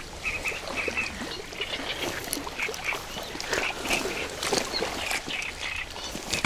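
Water splashing and sloshing at the bank as a hooked silver carp thrashes close in, with many short animal calls repeating throughout in the background.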